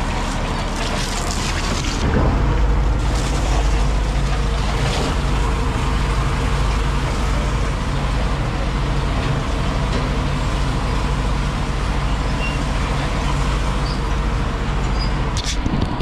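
Fire truck's engine running steadily while a hose pours water into its tank through the open top hatch, the water churning in the tank. The engine gets louder about two seconds in and holds there.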